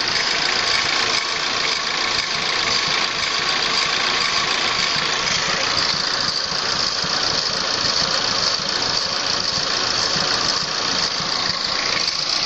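Car engine idling steadily with a constant high hiss over it, which the owner suspects may be a vacuum leak.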